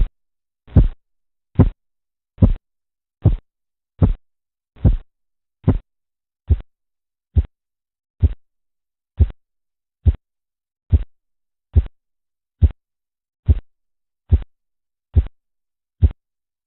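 Korotkoff sounds heard through a stethoscope over a cuff-occluded artery while the blood pressure cuff deflates: a regular series of about twenty pulse beats, a little under one a second. The first few beats are longer and fuller and the later ones shorter and crisper.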